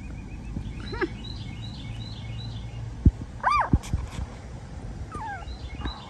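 Pomeranian puppies whimpering: three short squeaky cries, the loudest about three and a half seconds in, with a sharp tap just before it. Faint high chirping runs behind them.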